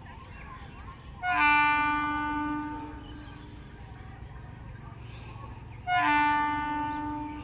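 Horn of an ICF MEDHA three-phase EMU train sounding two blasts, about a second in and again near the end, each lasting about a second and a half and opening with a brief lower note before settling on its main pitch.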